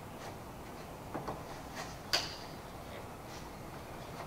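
Light clicks and taps from a folding camp chair's aluminium pole frame as its fabric seat is fitted onto the pole ends, with one sharp metallic click about two seconds in.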